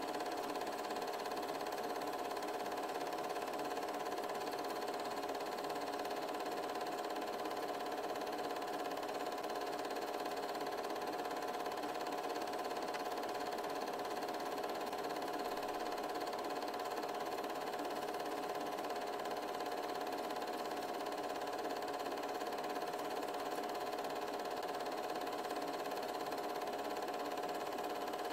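8mm film projector running: a steady mechanical hum with a constant mid-pitched whine over hiss.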